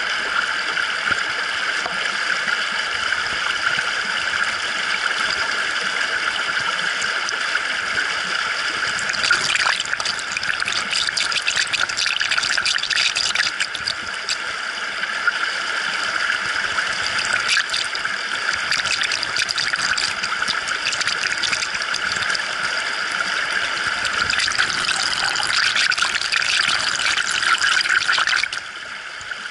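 Moving water rushing and splashing over rocks, heard from an action camera submerged in its waterproof housing. A steady rush with spells of sharper splashing; it drops in level about a second before the end.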